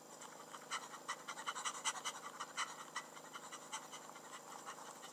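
Faint, irregular wet clicking and crackling with panting breaths, a cartoon sound effect of a slow creature laboriously crawling.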